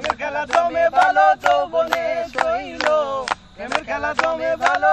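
Voices singing a melody with held notes, kept in time by a sharp percussive beat about three to four times a second, with a short pause a little after three seconds.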